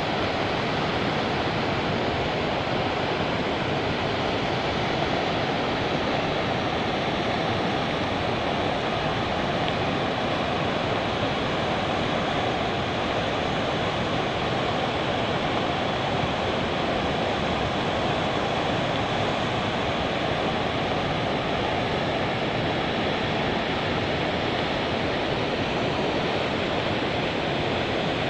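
A swollen river in flood rushing past, a steady, unbroken noise of fast-moving water.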